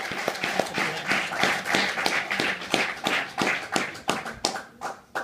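Audience applauding at the end of a song, the clapping thinning out to a few scattered claps near the end.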